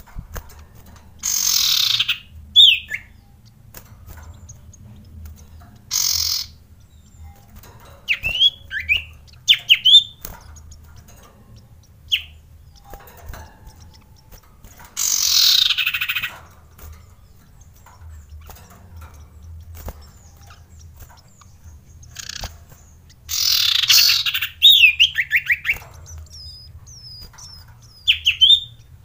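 Caged common iora (cipoh) giving short sweeping chirps in small clusters, broken by four loud rushes of wing-flapping as it flutters about the cage.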